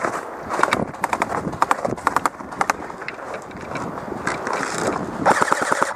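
Footsteps and gear rattle during movement, with sharp airsoft gun shots, ending in a fast full-auto burst about five seconds in.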